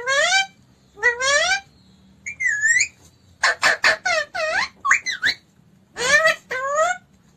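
Pet parrot giving a string of about eight short, loud calls, each about half a second long. Most calls rise in pitch and a few dip and then rise again, with one quick run of short notes near the middle.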